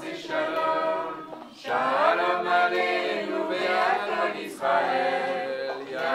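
A group of voices singing together without instruments, in held, sustained phrases with short breaks between them.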